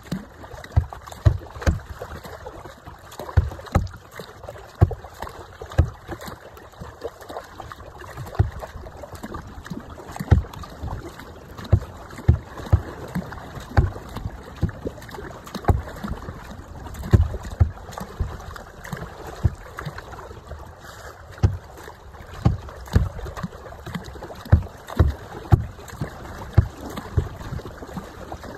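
Plastic kayak moving on a choppy river: water slaps and splashes around the hull in repeated low thuds, about one a second, over a steady rush of wind on the microphone.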